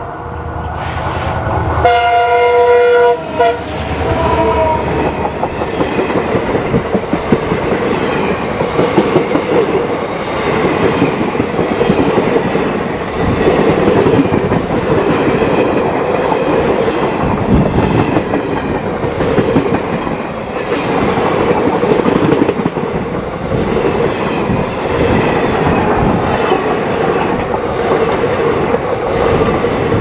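A WDP4 diesel locomotive's multi-tone horn sounds in two blasts early on: a short toot right at the start and a longer chord about two seconds in. The train then passes close by, with a heavy rumble and the wheels clattering over the rail joints as the coaches go past.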